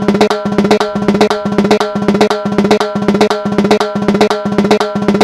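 Recorded timbal pattern playing back in a loop: quick, evenly repeating drum strikes with a ringing metallic pitch. The two microphone tracks are not yet time-aligned.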